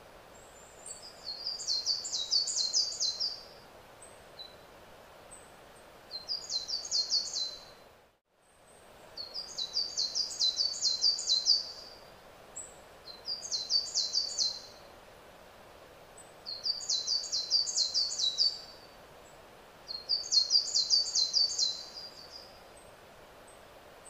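A songbird singing the same short, high phrase of rapid notes six times. Each phrase lasts about two seconds, with a pause of one to two seconds between them, over a steady faint outdoor background noise.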